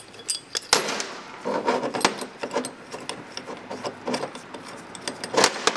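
Steel puller and its bolts clinking, rattling and scraping in gloved hands as the puller is unscrewed and taken off a water pump's impeller. The sound is a string of sharp metal clicks, with a louder clatter near the end.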